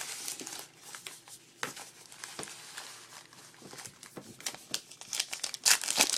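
Trading card pack wrappers crinkling and tearing as packs are opened, a run of irregular crackles that grows loudest near the end.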